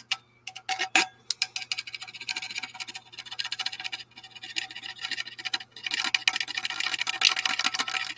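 Small folding knife blade scratching and picking rapidly at a UV DTF decal on a printed tumbler, a fast run of ticks and scrapes with two brief pauses, testing whether the decal stays stuck.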